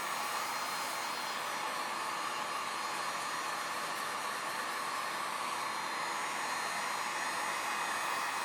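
Heat gun on its low setting blowing steadily, heating freshly applied wrinkle paint to bring out the wrinkle texture.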